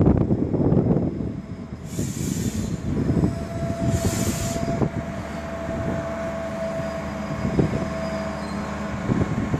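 MAN diesel railcar rolling slowly into the station, with a steady squeal from its brakes or wheels from about three seconds in to about eight seconds in. Two short hisses come about two seconds apart, and there are wheel clicks over a low rumble.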